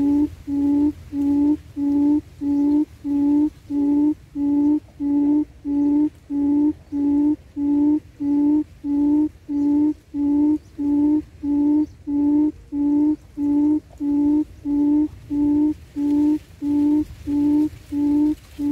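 Buttonquail lure call for trapping: a low hoot repeated evenly about one and a half times a second, every note alike.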